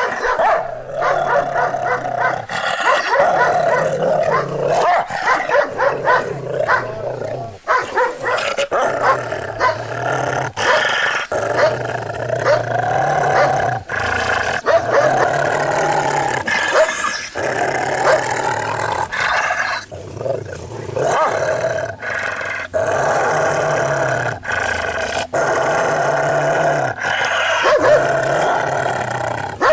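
Dogs making noise almost without a break: a low rumble under higher-pitched, wavering cries, with short pauses.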